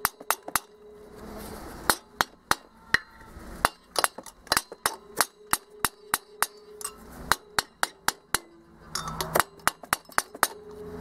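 A mallet tapping the finned cylinder barrel of a VW Beetle air-cooled flat-four engine in quick, sharp knocks, about three a second, with two short breaks. The barrel has been heated and is being driven off the crankcase and studs without a puller.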